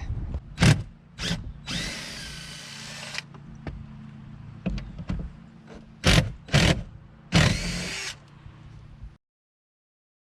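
A power drill backs out seat bolts in two short runs of about a second each. Sharp knocks and clicks come in between. Near the end the sound cuts off abruptly to silence.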